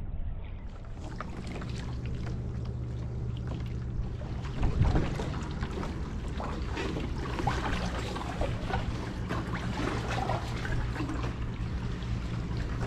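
Sea water splashing and trickling around a kayak, many small irregular splashes over a steady low rumble.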